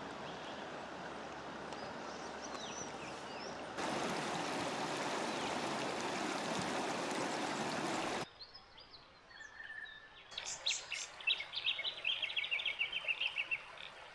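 River water rushing steadily. It gets louder at about four seconds in and cuts off about eight seconds in. After that come quieter birdcalls, then a quick run of repeated chirps near the end.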